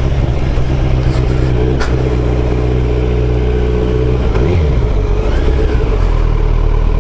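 Motorcycle engine running at low road speed, heard from the rider's seat. Its note dips and then picks up again about four and a half seconds in, then settles into a lower, steady beat.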